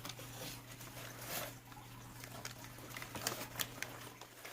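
Packaging being handled during an unboxing: scattered light clicks, taps and rustles, over a steady low hum.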